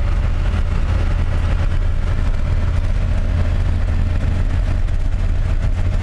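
A motor vehicle driving along with its engine and road noise making a steady, unchanging low drone.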